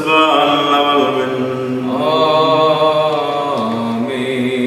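A man's voice chanting a liturgical prayer in long held notes, moving to a new note about two seconds in and dropping lower near the end of the phrase.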